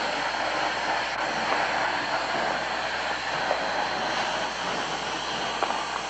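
Workshop machinery running, a steady dense mechanical noise with no let-up.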